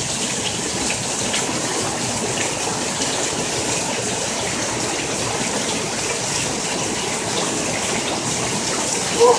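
Heavy rain pouring down in a steady, even hiss. A brief shout of a voice cuts in near the end.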